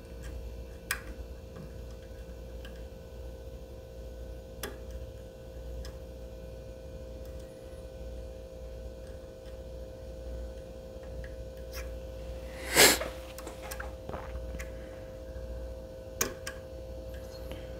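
Faint, scattered clicks of a pick and tension wrench working the pins inside a Medeco lock cylinder held in a vise, over a steady low hum. One brief, louder noise comes about two-thirds of the way through.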